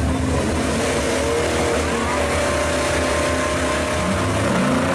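1967 Pontiac GTO's V8 running hard through a burnout on the drag strip, a steady loud engine noise with the rear tyres spinning, mixed with the other muscle car's engine idling in the next lane.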